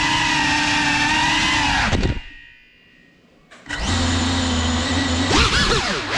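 Small FPV quadcopter's electric motors and propellers whining at a steady pitch, then almost cutting out for about a second and a half around two seconds in before spooling back up. Near the end the pitch swoops up and down quickly several times.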